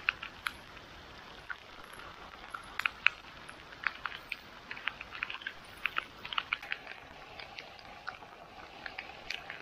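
Water dripping and splashing in irregular drops over a steady hiss.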